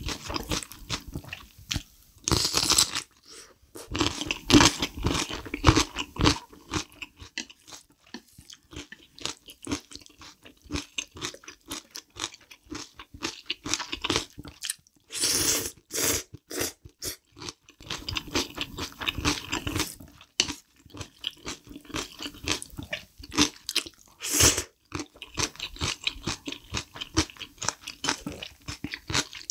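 Close-miked chewing and crunching of kimchi and black bean noodles: a dense run of wet crunches and mouth clicks. Louder bursts come three times, the middle one as a mouthful of noodles goes in.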